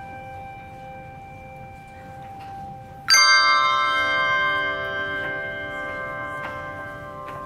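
Handbells: a single held note rings and fades, then about three seconds in a loud chord of several bells is struck together and rings out, slowly dying away.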